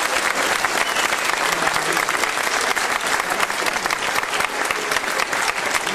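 Audience applauding: many hands clapping.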